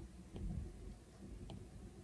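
Stylus tip tapping on an iPad's glass screen: three light, sharp clicks at uneven spacing, with a soft low bump about half a second in.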